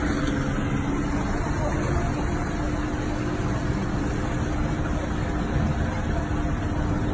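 Engine of a wrecked small car running steadily as it drives away down a street, with street traffic noise around it.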